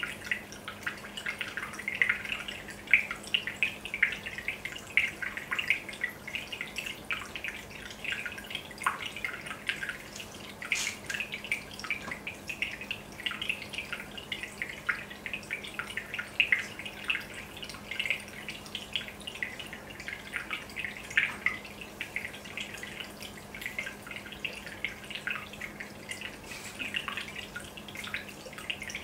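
Aquarium aeration bubbling: a dense, irregular patter of small bubbles bursting and dripping at the water surface, with a steady low hum underneath.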